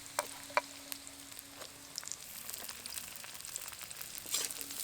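Chopped onion pieces frying in hot oil in a kadai, an even sizzle that grows louder after about two seconds, with a couple of sharp clicks near the start.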